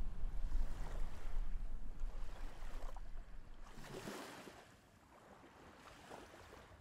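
Seaside ambience: a low rumble with faint lapping of water, fading away about four seconds in.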